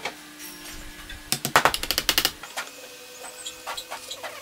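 A quick flurry of sharp clicks and knocks starting about a second and a half in, then a few lighter scattered clicks: a jigsaw and wooden jig parts being handled on a workbench. The saw's motor is not running.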